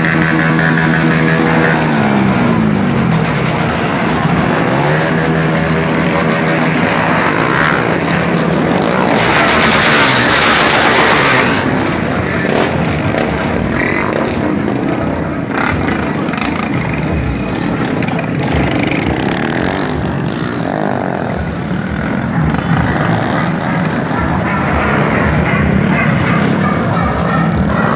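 Motorcycle engines revving and running. A held engine note drops in pitch a couple of seconds in, followed by a dense mix of engine noise, loudest for a couple of seconds near the middle.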